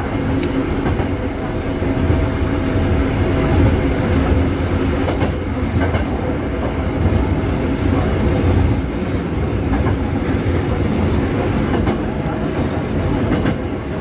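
Nose Electric Railway electric train running along the track, heard from inside the front car: a steady rumble of wheels on rail with a few sharp rail-joint clicks.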